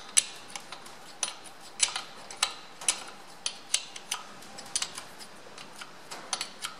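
A small steel open-end spanner clicking and clinking on the flange nuts of a tractor's rear axle housing as they are run down by hand: an irregular series of short, sharp metallic clicks, two or three a second.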